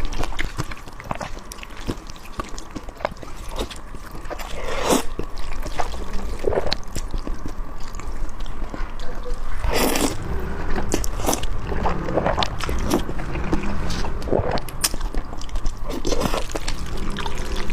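A person eating rice noodles, slurping and chewing in irregular bouts.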